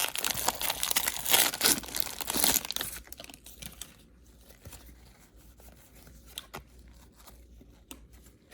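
A trading-card pack's wrapper being torn open and crinkled in the hands for about three seconds, then quieter handling with a few faint clicks as the cards are taken out.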